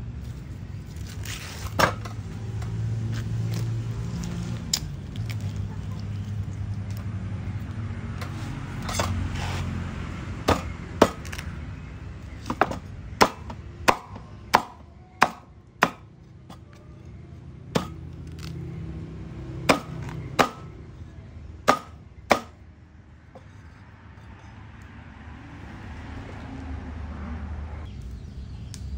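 Large kitchen knife chopping an ear of corn into rounds on a wooden chopping board: about a dozen sharp chops, less than a second apart, starting about a third of the way in. Before the chopping there is a low steady rumble and a couple of single knocks.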